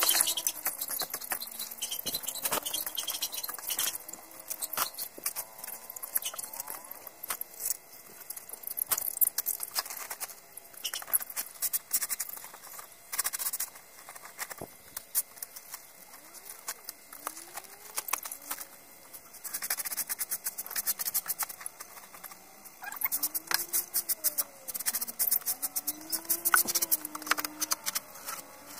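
Stick broom and gloved hands scratching and sweeping rice-hull litter and chicken droppings across a plastic tarpaulin, in irregular bursts of quick scratchy strokes. Chickens give soft rising-and-falling calls behind it.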